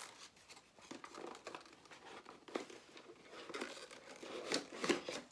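Packaging crinkling and rustling in irregular handfuls as a wireless gamepad is unwrapped, with a few louder crackles near the end.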